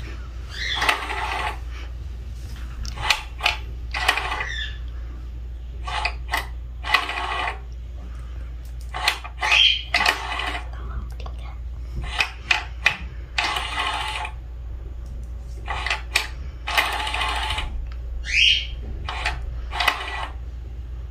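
Battery-powered Crazy Donut cat toy running in short bursts of whirring and clicking every few seconds, its motor and internal gear turning the feather around inside the housing.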